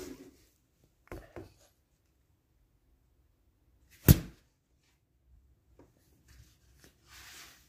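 Close handling noise on a phone's microphone: two soft knocks about a second in, one sharp, loud tap about four seconds in, and a soft rustling hiss near the start and again near the end.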